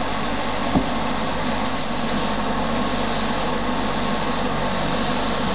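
Airbrush spraying paint in short hissing passes, starting about two seconds in and cut off briefly three times as the trigger is let go, over the steady rush of a spray booth's exhaust fan.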